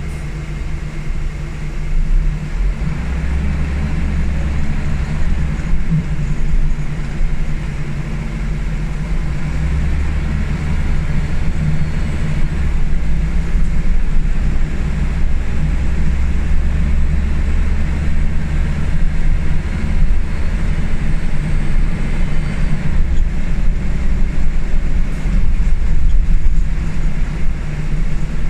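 Scania L94UB single-decker bus running on the road, heard from inside the passenger saloon: a steady low rear-mounted diesel drone mixed with road and body rumble. It grows gradually louder through the stretch.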